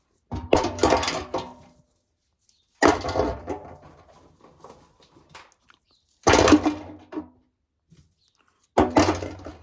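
Ears of corn tossed into a container, four times at intervals of two to three seconds, each landing with a sharp clatter that rattles off over about a second.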